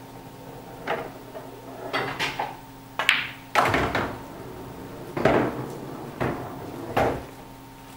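Billiard balls clacking on a pool table, with a cue strike and a string of hard knocks and heavier thuds as balls hit the cushions and a ball drops into a pocket.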